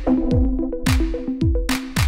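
Electronic background music: a drum-machine beat with a kick drum about twice a second, snare and hi-hat hits, and short plucked synth notes.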